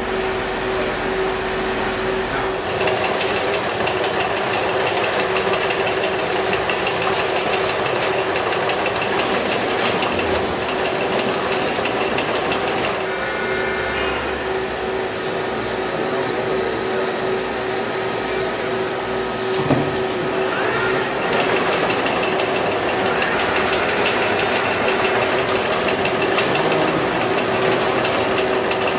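Robotic palletizer and its packaging-line conveyors running steadily, a constant mechanical hum over dense hiss. About two-thirds through there is a single knock, then a short rising whine.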